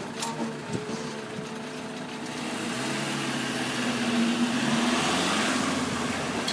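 A vehicle engine running steadily, growing louder over several seconds, with its pitch rising briefly a little past the middle.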